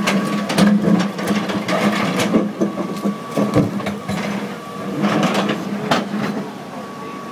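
John Deere 200C LC hydraulic excavator's diesel engine running with a steady drone, with irregular sharp knocks and clatter as its bucket digs among river rocks in the water.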